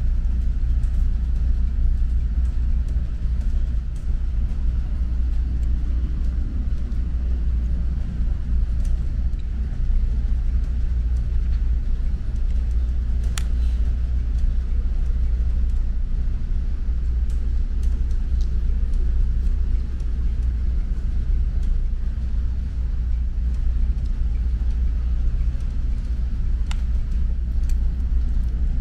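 Steady low rumble of the ferry's engines felt and heard through the ship, with a few sharp clicks a little before the middle and near the end.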